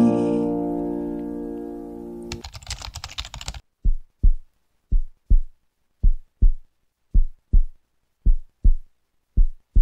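Background music ending on a held chord that fades out over about two seconds, with a brief crackle. Then low double thumps like a heartbeat repeat about once a second.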